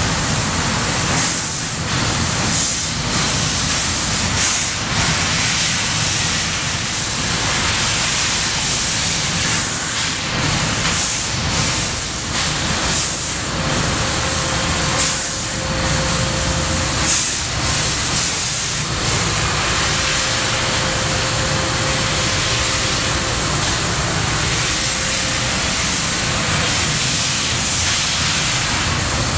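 Bystronic Bystar 3015 4000-watt CNC laser cutter cutting sheet metal: a loud, steady hiss, with short sharper flare-ups of hiss every second or few through the first two-thirds, then steadier.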